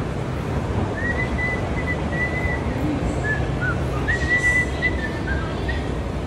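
Whistling in a few held high notes, stepping down in pitch between two longer phrases, over a steady low din.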